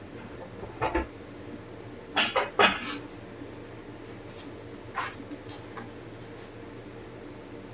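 A handful of short clinks and knocks of small metal parts being handled and pressed into place: one about a second in, a quick cluster of three around two to three seconds, and two lighter ones near five seconds. A steady low hum from a running shop heater sits underneath.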